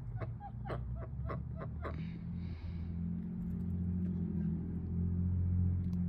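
A steady low motor hum comes in about two seconds in and grows slowly louder. Before it, a quick run of short sharp clicks.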